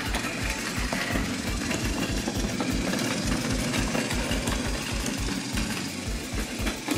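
Battery-powered Plarail toy train running, its small electric motor and gearing whirring and rattling with an even low rhythmic pulse as the wheels roll along wooden track.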